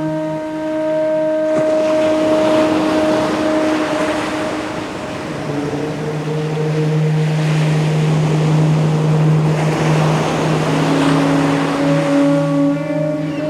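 Ocean surf washing in, the wave noise swelling up about a second and a half in, easing briefly, then surging again and fading near the end. Under it are long, held low tones of a chanted 'Om' that shift pitch a few times.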